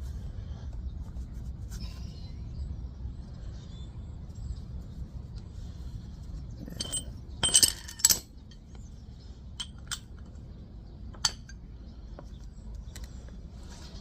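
Metal hand tools clinking together: a quick cluster of sharp clinks about seven to eight seconds in, then a few single ticks, over a steady low hum.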